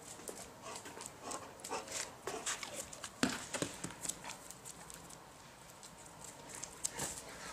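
German shepherd's claws clicking and scuffing on brick paving in quick, irregular steps as it paws and pounces after an apple, with one louder knock about three seconds in.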